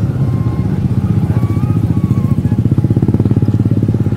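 Motorcycle engine running close by with a fast, steady low pulsing that grows a little stronger in the second half.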